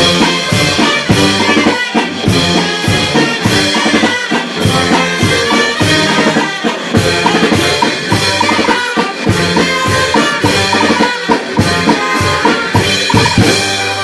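Brass band with drum kit playing a pasodoble: trumpets and other brass carry the melody over a steady march beat of bass drum and cymbal strokes, about two a second.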